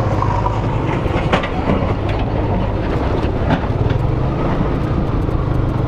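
Motorcycle engine running steadily while riding over a rough, broken road, with scattered rattles and knocks from the bumpy surface. The engine note rises slightly about four seconds in.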